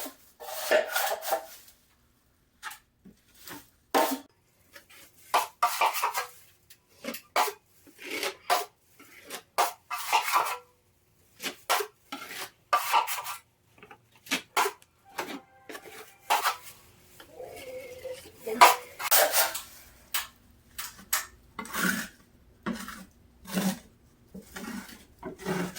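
Steel drywall knife scraping joint compound onto a new drywall patch in a run of short, irregular strokes: the seams are being pre-filled.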